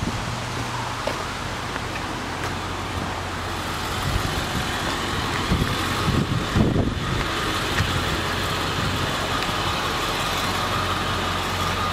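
Caterpillar 988F wheel loader's V8 diesel engine idling with a steady low hum, heard up close. A few low thumps come about six to seven seconds in.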